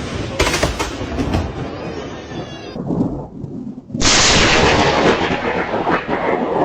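Close lightning strike: a sudden, very loud crack of thunder about four seconds in that rumbles on for a few seconds, after a stretch of noisy sound with a couple of sharp knocks.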